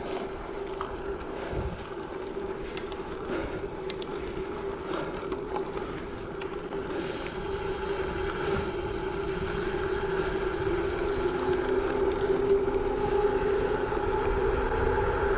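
Gravel bike tyres rolling over a loose gravel road: a steady hum with gritty crunching underneath, growing gradually louder through the second half.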